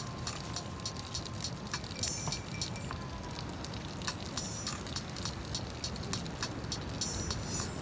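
Campfire wood crackling and popping in irregular sharp snaps over a steady low rumble.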